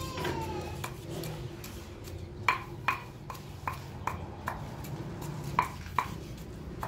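Kitchen knife cutting on a thick wooden chopping block: sharp, irregular knocks as the blade strikes the wood, several coming quickly in a row in the middle of the clip.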